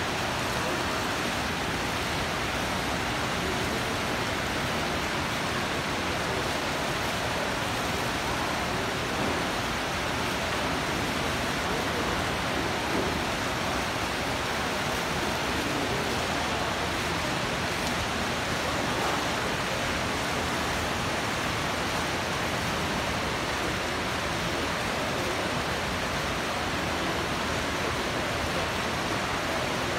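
Water from an indoor fountain's jet and cascades splashing steadily: an even, unbroken hiss.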